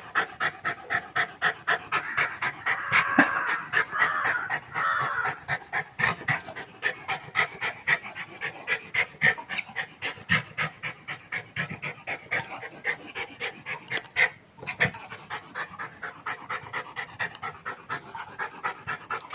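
Pomeranian dog panting rapidly and steadily, about four quick breaths a second, with a brief pause a little past the middle.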